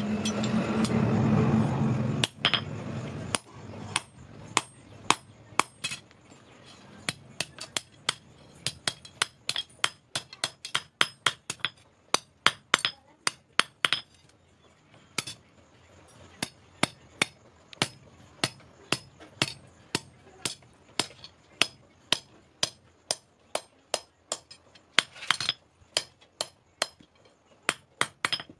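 Hand hammer striking a thin iron rod on a steel anvil, bending the rod's end over into a loop: an uneven run of sharp, ringing metallic strikes, a few a second, with a short pause about halfway. A louder continuous noise fills the first two seconds and stops abruptly.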